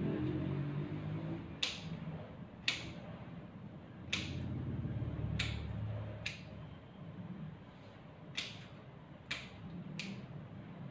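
Grooming scissors snipping through a dog's leg hair: about eight sharp snips, irregularly spaced roughly a second apart.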